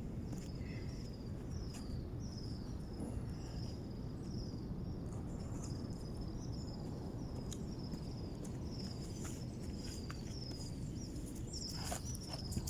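Insect chirping steadily, a short falling high chirp about twice a second, over a low steady background rumble. A few faint clicks come near the end.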